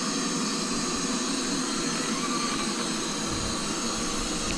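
LG Roboking AI All-in-One robot vacuum running its suction motor in a steady whirring hum with a few steady whining tones, then cutting off suddenly at the end.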